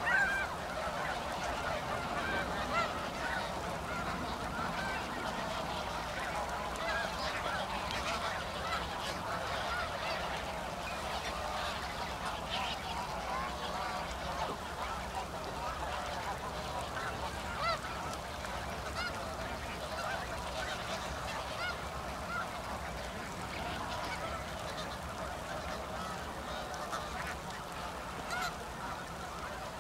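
A flock of snow geese calling, a dense chorus of many overlapping honks that never lets up.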